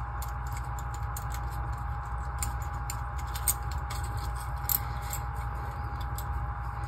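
Small scattered clicks and ticks of steel nuts being threaded by hand onto M6 bolts in a 3D-printed press frame, a few louder than the rest. Under them runs a steady background hum with a faint constant tone.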